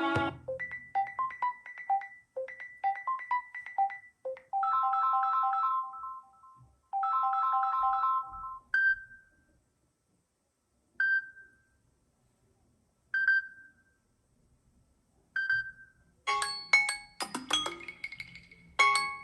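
Samsung Galaxy S22 Ultra stock ringtones played one after another. First a short plucked melody repeats every couple of seconds, then a sustained chiming phrase plays twice. Next a single bell-like ding sounds about every two seconds, four times, and near the end a busier, percussive tune begins.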